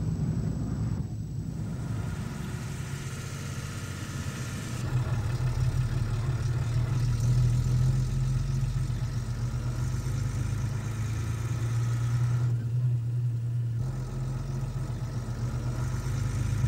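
An engine running steadily at idle, a low, even hum that grows louder about five seconds in.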